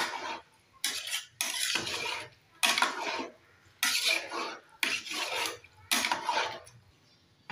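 A spoon stirring rice and chicken in broth in a metal pot, scraping and knocking against the pot in about seven strokes roughly a second apart.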